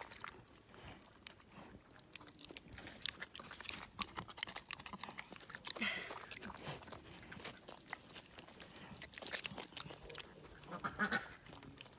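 A young boar pig, about five months old, eating with wet chewing and lip-smacking: many quick sharp smacks, busier and louder about halfway through and again near the end.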